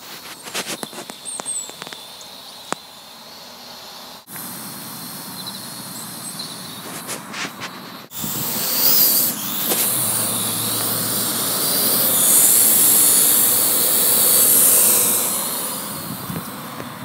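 Parrot AR.Drone 2.0 quadcopter's motors and propellers whirring: a loud, high, hiss-like whine that starts abruptly about eight seconds in, swells, then eases off near the end. Before that, a quieter steady hiss with scattered clicks, twice broken off suddenly.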